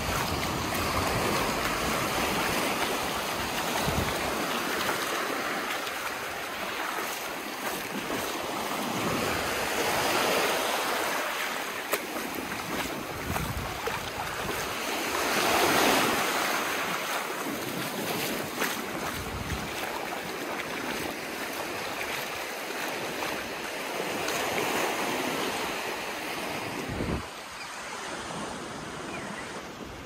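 Small surf breaking and washing up a sandy beach at the water's edge, the hiss of each wave swelling and fading; the loudest break comes about halfway through. Wind buffets the microphone now and then.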